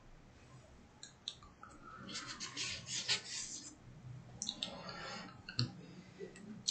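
Soft rustling and rubbing of paper with scattered light clicks, in two short spells.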